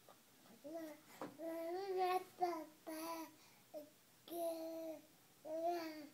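A voice singing a slow, wordless tune in about six short held notes with pauses between them.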